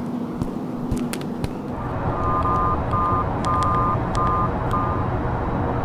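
A few sharp clicks and knocks of kitchenware being handled, then a steady low car-cabin rumble with a run of short electronic two-note beeps of uneven length.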